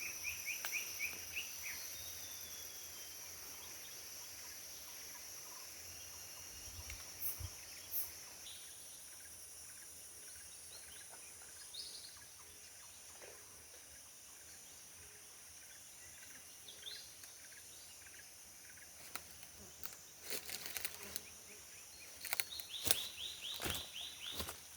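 Tropical forest ambience: a steady high-pitched drone of forest insects, with bird calls over it. A short rapid trill comes at the start, a few scattered single notes follow, and a longer series of rapid notes comes near the end. Sharp clicks and rustles start about 20 seconds in.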